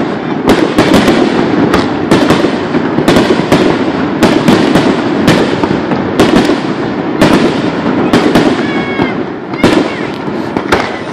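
Aerial fireworks display: shells bursting overhead in quick succession, more than one loud bang a second, over a continuous rumble between the bangs.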